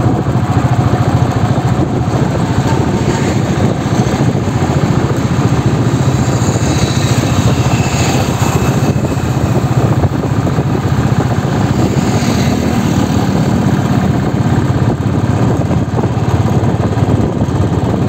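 Motorbike running at road speed, heard from the rider's seat: a steady engine and rushing road noise with no break.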